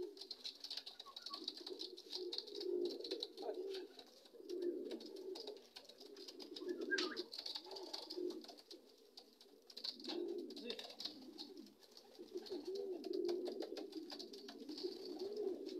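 Racing pigeons cooing at their loft: repeated low, wavering coos in phrases about a second long, one after another.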